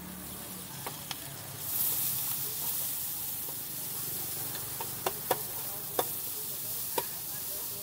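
Hot oil sizzling around fritters frying in a steel pot, the hiss swelling about two seconds in. Several sharp clicks come near the end.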